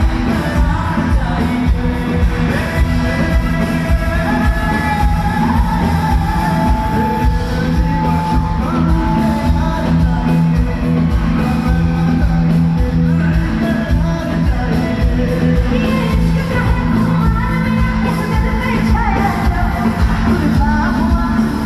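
Loud live concert music: a singer over a band with a steady beat, amplified through the PA of a large hall.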